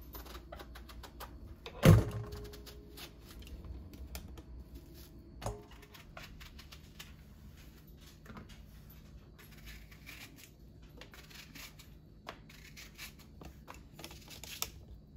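A knife slicing eggplant by hand, with many small cutting clicks and soft taps as the pieces drop into a stainless steel bowl. A louder knock about two seconds in rings briefly, and a smaller knock follows a few seconds later.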